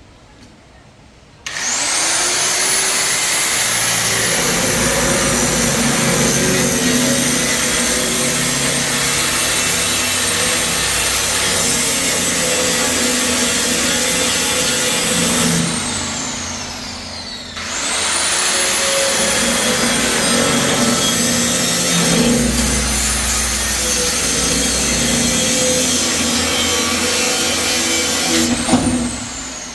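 High-speed electric power tool run twice. Each time its motor spins up with a rising whine, then runs with a rasping, grinding noise as it works material, and winds down with a falling whine. The first run lasts about fourteen seconds; the second starts about two seconds later and lasts about eleven.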